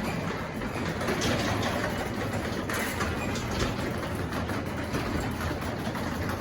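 Craftsman 3/4-horsepower belt-drive garage door opener running steadily as it raises the door, its motor giving a low hum.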